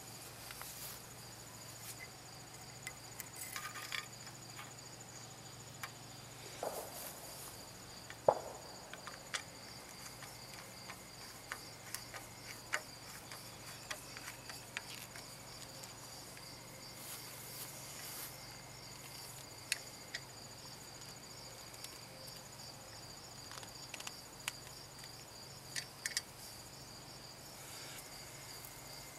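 Insects trilling steadily: a fast, high chirping that does not let up. Over it come scattered light clicks and taps as a stainless hose clamp is handled and tightened onto aluminium tubing with a nut driver, the sharpest about 8 seconds in.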